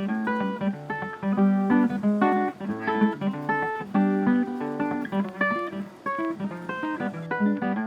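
Background music: a quick, continuous run of picked plucked-string notes.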